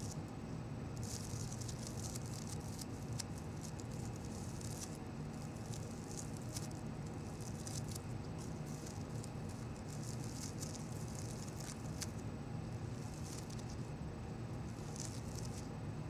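Fingertips brushing and rubbing over the petals of a cut-flower bouquet of roses and carnations: a crisp, crackling rustle in spurts with a few sharp ticks, stopping for a couple of seconds near the end before one more spurt. A steady low hum runs underneath.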